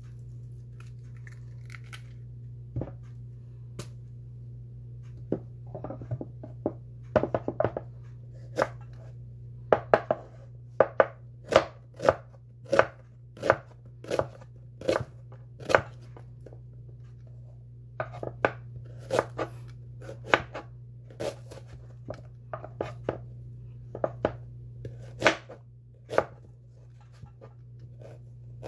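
Kitchen knife slicing a red onion into half-rings on a wooden cutting board: a crisp knock of the blade through the onion onto the board, sparse for the first few seconds, then about once a second. A steady low hum runs underneath.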